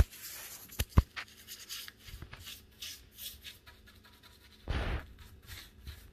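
Paintbrush stroking wet chalk paint and water along a wooden table edge in repeated soft swishes, with two sharp knocks about a second in and a short louder rustle near the end.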